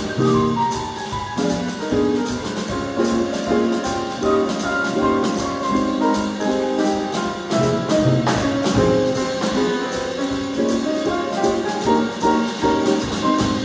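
Jazz trio of grand piano, archtop electric guitar and drum kit playing a swing tune, with a steady pattern of cymbal strokes.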